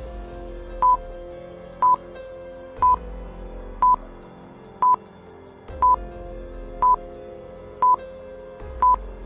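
Countdown-timer sound effect: a short electronic beep once a second, over soft, sustained background music.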